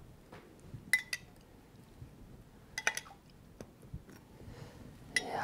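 A metal spoon clinking lightly against a ceramic dish and cup while espresso is spooned over ladyfingers: a few short, ringing clinks, two close together about a second in and a pair near three seconds, with quiet between.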